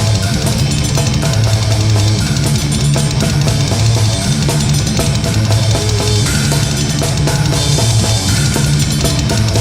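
Heavy metal music, instrumental: distorted guitars and bass over fast, dense drumming with bass drum and cymbals.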